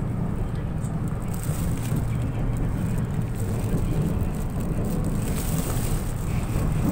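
An LRT Line 2 light-rail train running on elevated track, heard from inside the car: a steady low rumble of wheels on rail, with a higher hiss joining about a second in.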